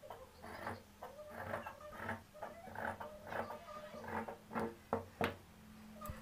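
Large tailoring shears cutting through blouse fabric in a run of short snips, about two a second, trimming off the excess cloth. Two sharp clicks about five seconds in.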